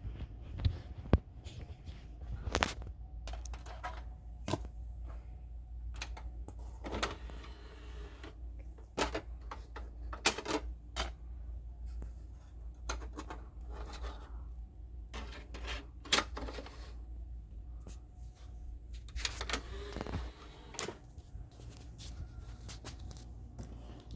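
Irregular light plastic clicks and knocks of a DVD case being opened and a disc being handled and swapped, over a low steady hum.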